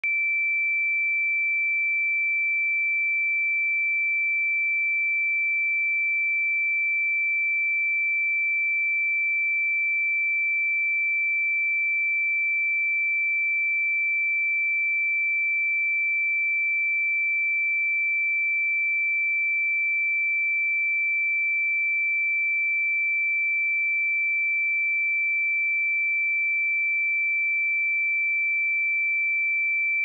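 Pure 2333 Hz sine-wave test tone held at a steady level: a single high, unwavering electronic tone.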